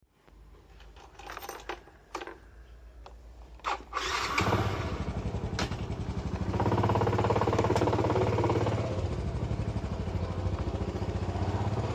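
A few clicks, then a small engine starts about four seconds in and runs steadily, growing louder at around six and a half seconds.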